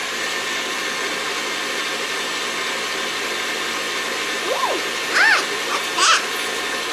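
KitchenAid stand mixer running fast with its dough hook turning through flour: a loud, steady motor whine.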